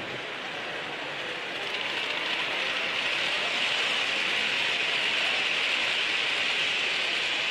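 Model train running along the layout track close by, a steady whirring noise of wheels and motor that grows a little louder about two seconds in as the coaches come nearer.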